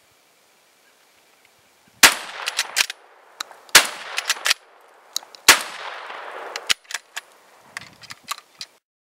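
J.C. Higgins 583.20 bolt-action 12-gauge shotgun fired three times about two seconds apart at steel plates, each blast echoing away. Sharp metallic clicks and clanks follow each shot, with a weaker bang and more scattered clanks near the end.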